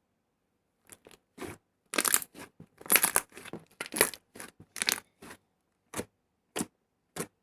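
Fluffy slime being squeezed and stretched by hand, giving a string of short, sharp crackles. They start about a second in, come thick for a few seconds, then thin out to single crackles near the end.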